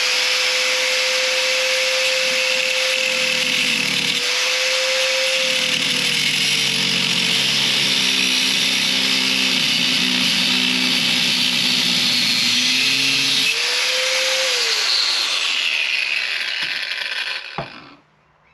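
Power cutting tool slicing through a seized, rusted part of an old front shock absorber. The motor runs at a steady whine, sagging briefly about four seconds in and labouring under heavier load in the middle. It winds down and cuts off near the end.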